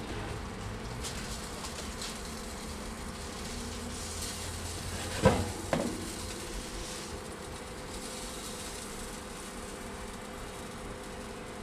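Countertop air fryer oven running at 400 degrees with a steady fan hum. About five seconds in, two sharp knocks as a clear plastic container is handled.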